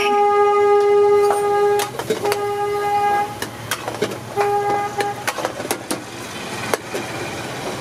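A vehicle horn honks three times: one long blast, then two shorter ones. Sharp clanks of a metal ladle striking an iron wok are mixed in as rice and rajma are stirred.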